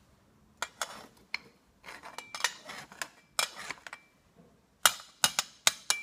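A metal trowel scraping and clinking against the inside of a steel ladle of molten pewter, skimming off the dross. A few light clinks come first, then scraping strokes, then a quick run of sharp clinks near the end.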